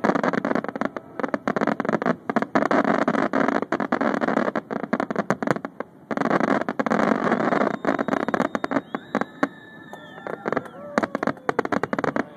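Aerial fireworks finale: a rapid volley of bangs and crackling bursts. It breaks briefly about six seconds in, packs in again, then thins to scattered bangs.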